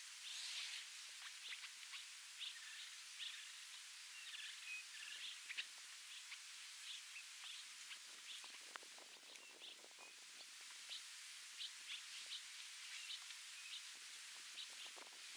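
Faint bush ambience: short, high bird chirps scattered over a steady hiss, with some soft rustling around the middle.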